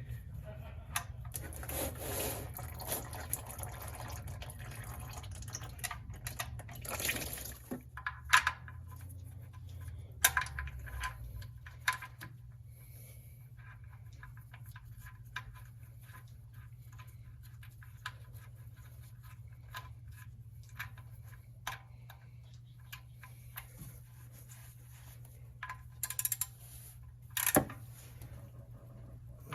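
Motor oil running out of a car's drain hole into a drain pan, with a few sharp clicks and knocks, the loudest near the end, over a steady low hum.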